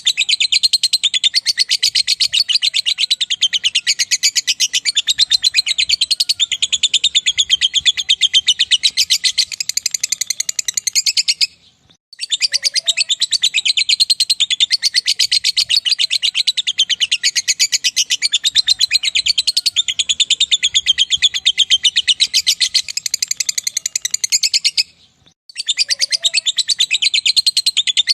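Lovebird giving its long 'ngekek' song: a rapid, high-pitched chattering trill held for about eleven seconds at a stretch, breaking off briefly twice before starting again.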